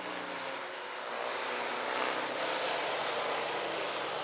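Align T-Rex 600 radio-controlled helicopter flying overhead: the rotor blades whoosh and the drivetrain gives a high whine, the sound swelling a little about two seconds in.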